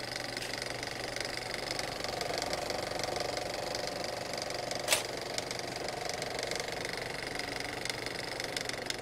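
Film projector sound effect: a steady, rapid mechanical clatter of film running through the projector, with one sharp click about five seconds in.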